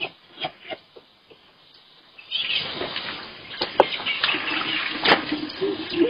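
Water scooped from a bucket with a mug and poured out, splashing onto the ground. A few light knocks come first, and the splashing starts about two seconds in.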